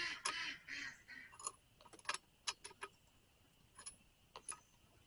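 Faint metallic clinks and clicks of small parts and tools being handled on a chainsaw, a short jumble of them at first, then single scattered clicks.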